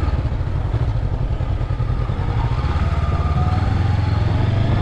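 Honda CB500X's parallel-twin engine running steadily at low revs, with a slight drift in pitch.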